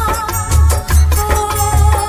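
Bollywood film song music in a passage without sung lyrics. A heavily boosted bass beat pulses about two to three times a second under a sustained, wavering melody line.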